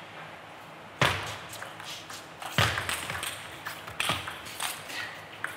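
Table tennis ball clicking off rackets and the table during a doubles rally. Sharp strikes come every second or so, the loudest about a second in.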